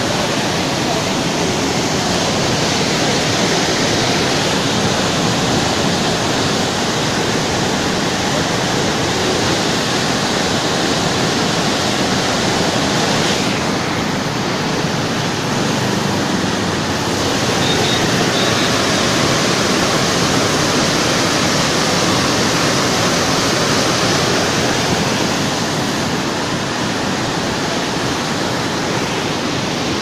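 Steady rush of water pouring over a concrete dam spillway and churning in the river below.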